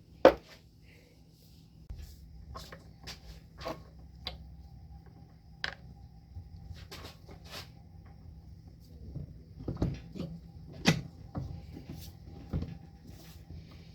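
Small metal parts and tools handled on a workbench: scattered clicks and knocks, with a sharp click just after the start and a couple of louder knocks near the end, over a faint steady hum.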